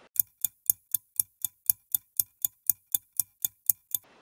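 Clock-ticking sound effect marking the quiz's thinking time: sharp, even ticks about four a second, stopping about four seconds in.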